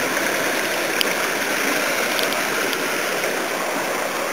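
Shallow rocky creek water running steadily over stones.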